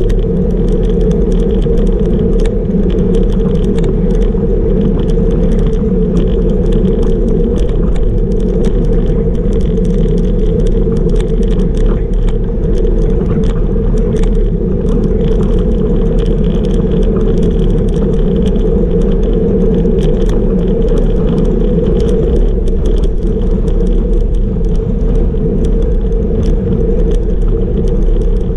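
Wind rushing over the microphone of a camera on a bicycle riding at about 40 km/h, with tyre and road noise from the asphalt. The noise is loud and steady, with many small clicks and rattles running through it.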